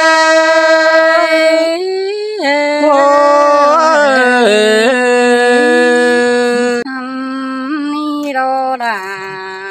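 Unaccompanied singing of a Thái (Tai) folk song: long held notes that waver and slide in pitch. The voice drops quieter about seven seconds in.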